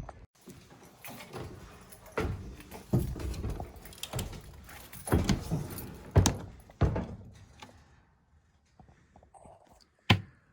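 A string of irregular knocks, clunks and rattles of things being handled, dying down after about seven seconds, with one sharp click near the end.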